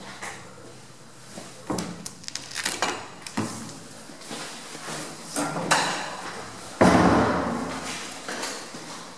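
Footsteps and clattering knocks echoing in a stairwell. About seven seconds in comes one loud bang with a long echo, a heavy door slamming shut.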